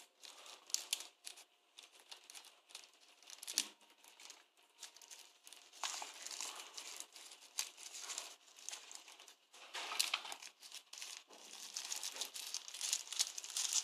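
Thin wrapping crinkling and rustling between the fingers as it is pulled open to free a phone's USB cable, in uneven spurts of crackle.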